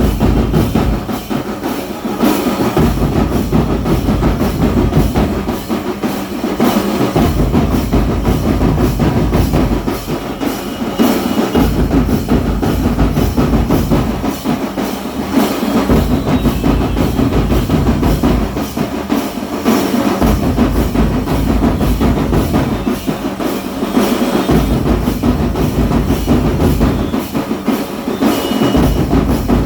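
Drum-led music with a steady beat, its deep bass dropping out briefly about every four seconds.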